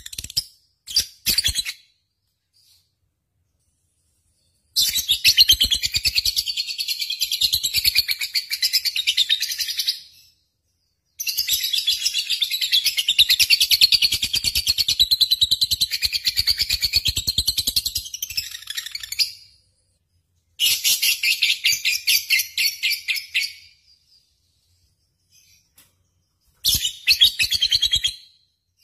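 Lovebird singing in long, rapid chattering trills: phrases of several seconds, the longest about eight seconds, broken by short silences.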